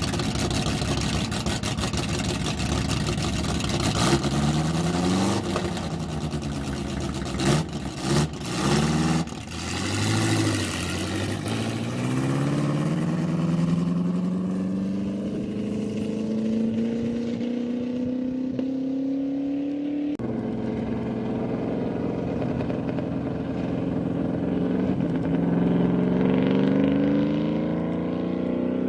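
A land-speed racing vehicle's engine at full throttle, its pitch climbing steadily through long gears. There is a rough, crackling patch about a third of the way in and a sudden drop in pitch at a gear change about two-thirds in. The engine grows duller toward the end as it pulls away.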